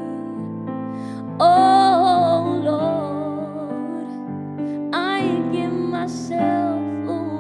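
A woman singing slow, sustained worship phrases over held keyboard chords. A loud held note with wavering pitch comes in about a second and a half in, and a second phrase enters about five seconds in.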